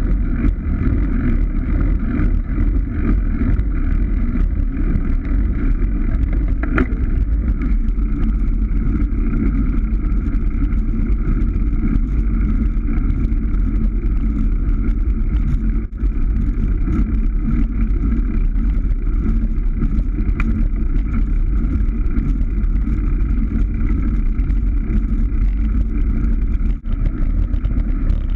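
Steady rush of wind and road noise on a bicycle-mounted action camera's microphone while riding.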